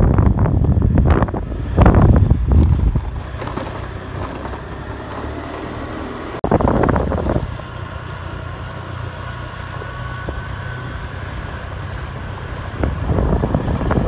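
Wind buffeting the microphone in deep rumbling gusts, heaviest in the first three seconds, once more about six and a half seconds in and again near the end, with a steadier low rumble between the gusts.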